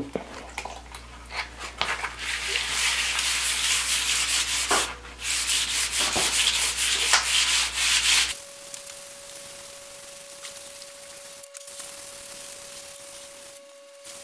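220-grit wet/dry sandpaper rubbed by hand over a wet concrete countertop, a gritty rasping with the rhythm of back-and-forth strokes: wet sanding the dried finish coat before the next coat. About eight seconds in the sanding noise drops away, leaving a faint steady hum.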